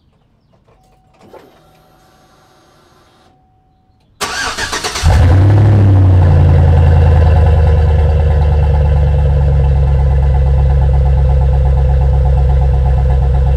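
A 2006 GMC Sierra 1500's Vortec V8 cranks about four seconds in and catches within a second. It flares up briefly, then settles into a steady, deep idle through a freshly fitted Flowmaster Super 10 muffler with turndown tip, heard from beneath the truck.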